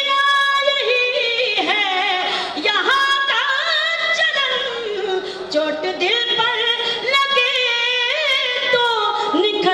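A woman singing Urdu verse solo into a microphone in tarannum, the melodic style of poetry recitation at a mushaira, with long held notes that bend and glide in pitch between short breaths.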